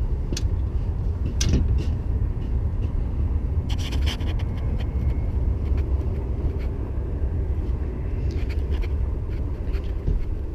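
Steady low rumble with scattered clicks and knocks, including a brief cluster of them about four seconds in.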